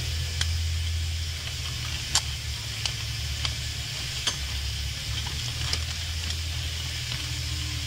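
A mother cat licking a newborn kitten: a few irregular sharp, wet clicks, about six in all, over a steady low hum and hiss.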